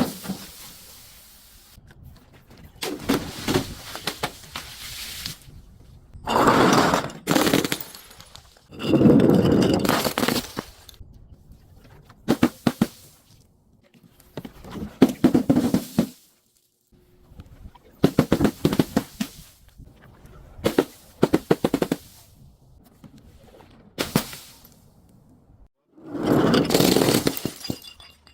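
Objects being crushed and broken one after another: about ten short bursts of crunching and cracking, each a second or two long, with short pauses between.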